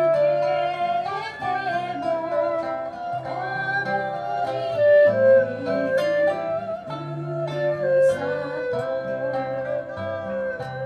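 Instrumental music: acoustic guitars accompanying an erhu, whose bowed melody slides between long held notes.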